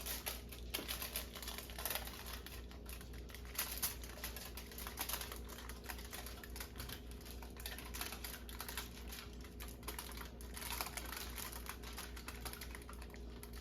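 Aluminium foil crinkling in quick, irregular crackles as it is rolled around a log of raw meatloaf mixture.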